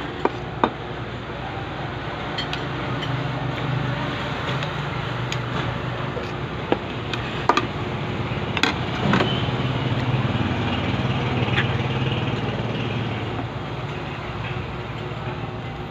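A passing motor vehicle's engine hum, swelling twice, with a few sharp clinks of a spoon and fork against the bowl and plate.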